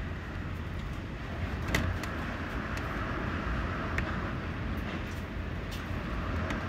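Typhoon wind and heavy rain: a steady rushing noise with a low rumble, broken by a few faint sharp ticks, one just before two seconds in and one about four seconds in.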